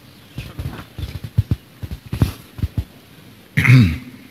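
Irregular low knocks and bumps of a microphone being handed over and handled, then a short cough into it near the end.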